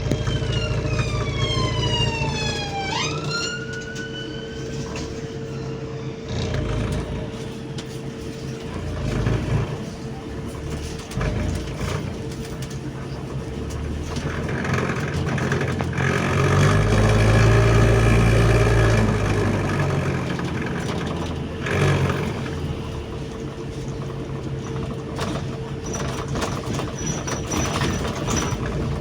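Bus heard from inside the cabin: the engine runs with a steady hum and scattered rattles, and swells louder for a few seconds about halfway through as it pulls away. Near the start, a siren's wail sweeps down and then back up.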